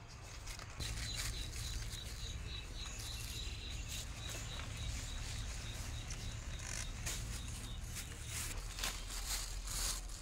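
Leaves, twigs and fruit clusters of a Java plum tree rustling and crackling as the fruit is picked by hand. A faint, high chirping repeats several times a second from about a second in.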